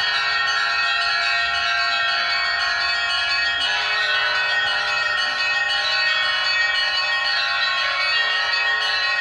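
Russian Orthodox monastery bells being rung continuously in a perezvon, many bells of different pitches sounding together and overlapping with no pause.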